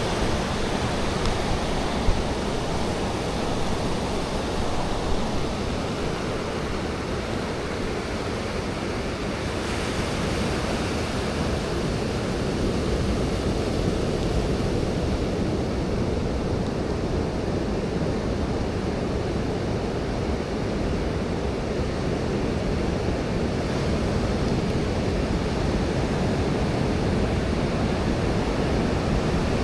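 Surf breaking on a sandy beach with wind buffeting the microphone: a steady rushing noise.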